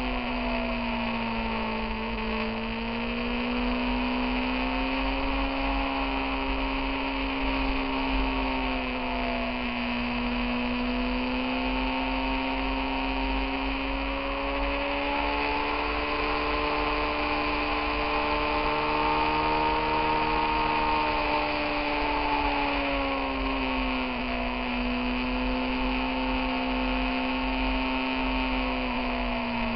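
Motorcycle engine running at a steady road speed, its note sinking and climbing gently several times as the throttle is eased and opened through the bends, over a steady low rumble of wind and road.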